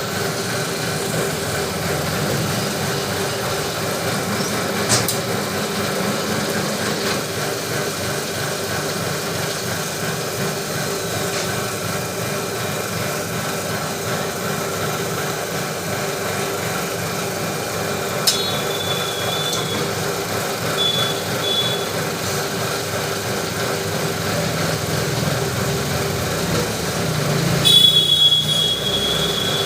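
Lathe running steadily with a constant machine hum. There is a sharp click about five seconds in, and short high-pitched squeals about two-thirds of the way through and again near the end.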